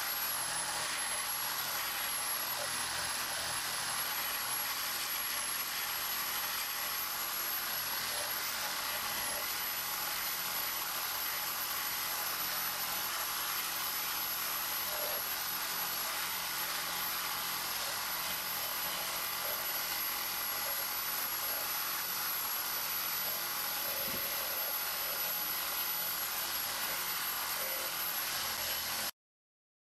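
Cordless reciprocating saw with a carbide-tipped blade cutting through a steel railway rail: a steady, even rasping whine of the blade in the steel. It cuts out completely for about a second near the end.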